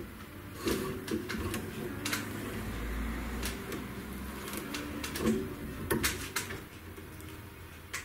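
Irregular knocks and clicks from hands working on an antique armchair's seat springs and wooden frame during spring tying, about seven sharp taps spread unevenly.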